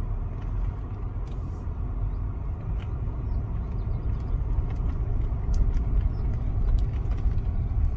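Car driving along a road: a steady low rumble of engine and tyres that grows slightly louder, with a few faint clicks.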